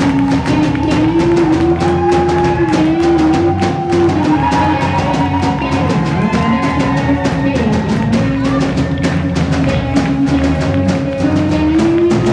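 Live rock band playing, drum kit keeping a steady beat under a sustained melodic line that slides between notes.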